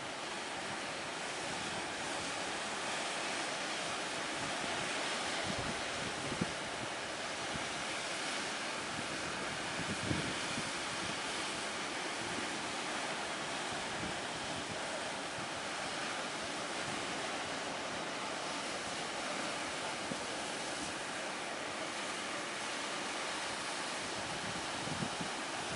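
Rough sea and strong wind: a steady rush of waves with wind buffeting the microphone, and a few brief thumps, at about 6 and 10 seconds in and near the end.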